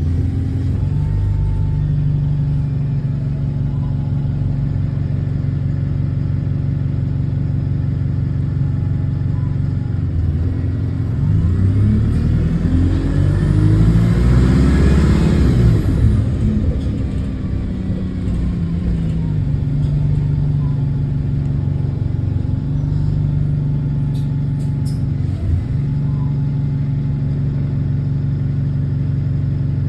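Diesel bus engine with an exhaust leak, heard from on board: running steadily, then revving up about eleven seconds in, with the pitch climbing and falling away, a high hiss along with it, before it settles back to a steady tone.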